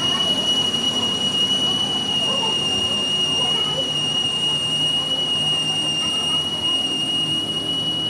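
A workshop machine running with a steady, high-pitched whine over a rough mechanical noise.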